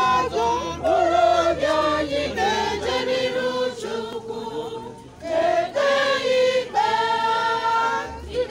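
Church choir of men's and women's voices singing a hymn together, with a brief break between phrases about five seconds in.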